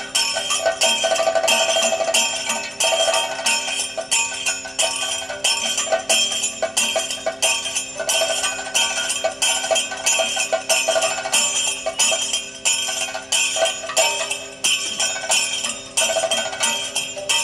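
Kathakali percussion accompaniment without singing: chenda and maddalam drums playing a steady, fast rhythm under ringing, jingling strokes of small hand cymbals.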